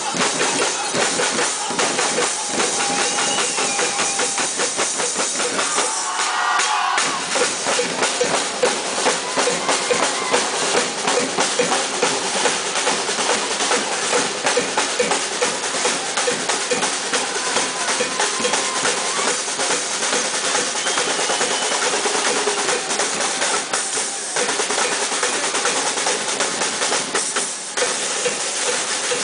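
A drum ensemble of several drummers on a row of drums, playing together in a fast, dense, continuous rhythm of quick strikes.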